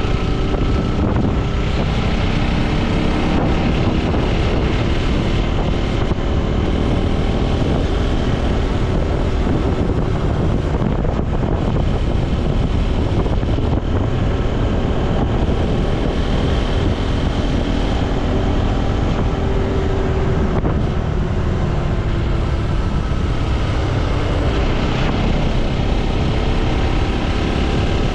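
Motorcycle engine running while riding, its pitch slowly rising and falling with speed, under steady wind rush on the microphone.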